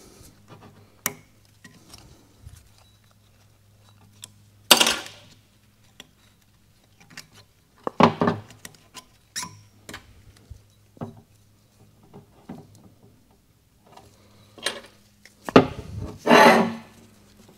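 Sealing rings being pried off a 48RE automatic transmission's shaft and small parts handled on the bench: scattered light clicks and clinks, with three louder scrapes or clatters about five seconds in, about eight seconds in and near the end. A faint steady hum runs underneath.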